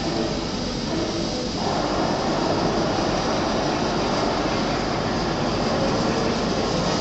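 Loudspeaker sound effects of the Godzilla head statue's hourly roar show: a loud, dense, noisy roar that grows fuller about a second and a half in as smoke is blown from its mouth.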